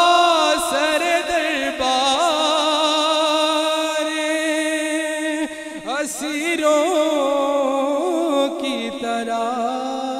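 A young man's solo voice singing a naat unaccompanied, holding long drawn-out notes with a wavering, ornamented pitch. A short break about five and a half seconds in is followed by a rising run.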